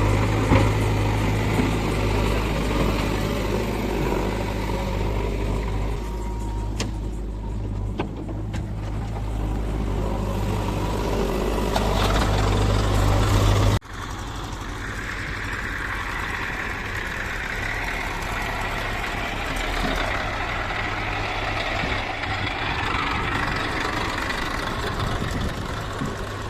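Heavy-machinery diesel engine running steadily. About halfway through there is an abrupt cut to a different, slightly quieter engine sound with more hiss and rattle.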